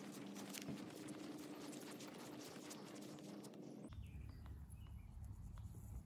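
Quiet outdoor ambience: faint footsteps swishing through grass over a low steady hum, then, about four seconds in, a sudden change to a low rumble with a few faint bird chirps.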